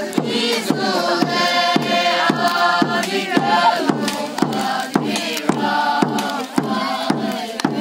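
A group of children and young people singing together, with a drum beating steadily underneath at about three to four strokes a second.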